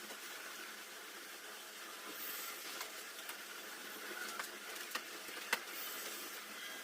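Steady low hiss of room noise with a few faint, scattered small clicks, from small parts and tools being handled during the reassembly of a TV panel.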